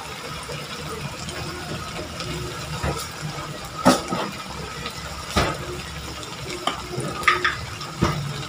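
Eggplant and beef in soy sauce simmering in a wok: a steady bubbling hiss, with a few sharp pops about four, five and a half and eight seconds in.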